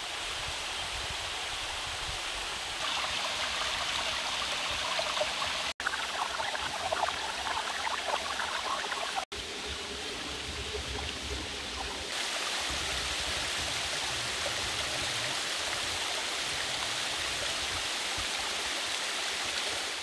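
Shallow forest stream running and trickling over stones in a steady rush of water. The sound changes abruptly a few times as it cuts between spots along the stream.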